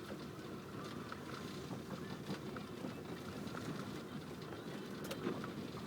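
Cabin road noise of a LADA Kalina driving over a rough, gravelly road: a steady tyre and suspension rumble with scattered small clicks and a sharper knock right at the end. The steering rack's rattling knock is gone after the repair.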